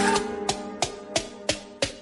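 Background music: a guitar-led track fades out, then five sharp percussive hits land about a third of a second apart.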